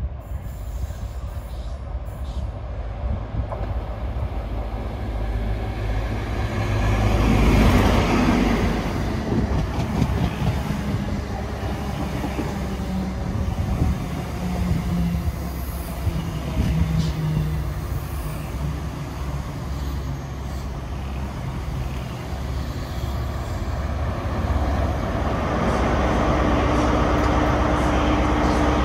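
Class 43 HST arriving and braking to a stand: the leading power car's diesel engine passes loudest about seven to eight seconds in, then the Mark 3 coaches rumble by on the rails. Near the end the rear power car's diesel runs steadily close by as the train stands.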